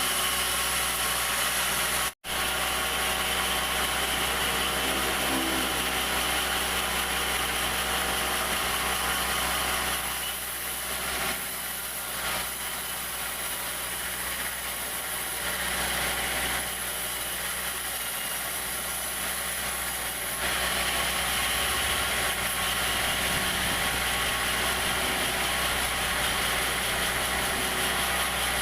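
Sawmill machinery running with a steady mechanical hum and a high hiss, the sound shifting several times between about ten and twenty seconds in. It cuts out briefly about two seconds in.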